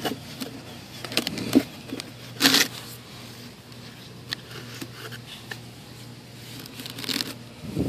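Handling noise as a metal AR-15 piston bolt carrier is set back into the foam insert of a cardboard box: a few light clicks and knocks, and one short rustle about two and a half seconds in.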